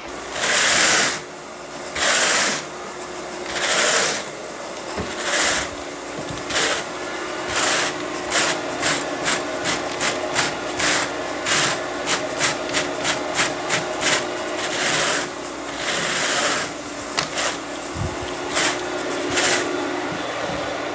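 Carpet grooming rake dragged through the pile of freshly cleaned carpet: a series of scratchy, rasping strokes, a few long slow ones first, then quick short strokes about two or three a second, then slower again. A faint steady hum runs underneath.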